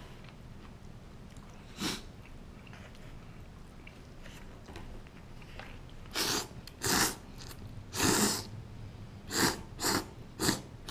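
A man slurping miso ramen noodles: one short slurp about two seconds in, then a run of five quick slurps in the second half, the longest about eight seconds in.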